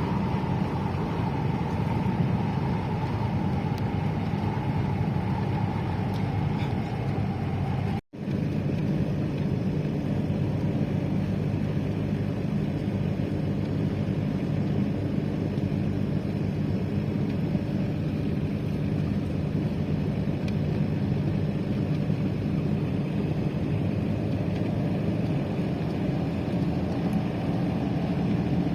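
A motor vehicle running steadily, with a low engine hum and road noise. A higher tone slowly falls over the first several seconds, and the sound cuts out for an instant about eight seconds in.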